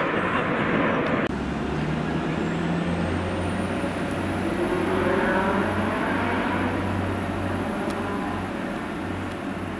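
Jet aircraft passing overhead for about the first second. This then changes suddenly to a Class 175 diesel multiple unit running slowly into a station, with a steady low engine drone and a thin high squeal that rises and then holds.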